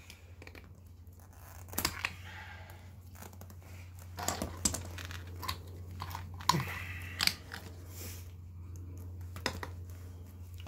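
Large plastic zip ties being worked loose from a steel-chained tire with snips and pliers: a string of sharp clicks and scrapes as the tool catches and releases the ties. A steady low hum sits underneath.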